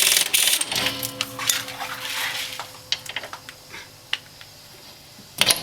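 Impact wrench hammering in loud short bursts to break loose the rear hub nut, stopping less than a second in. A fading ring and a few metallic clinks follow, then one more brief burst from the wrench near the end.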